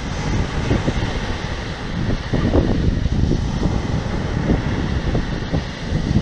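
Strong wind buffeting the microphone, with the wash of sea waves beneath it.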